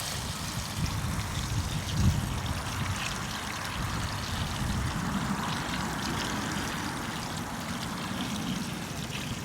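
Water running steadily from a tap into a colander of sloe berries as they are rinsed, with a low rumble underneath.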